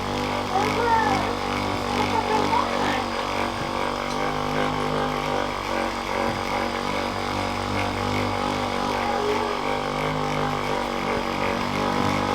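A steady mechanical hum made of several held tones, like a small electric motor running without pause.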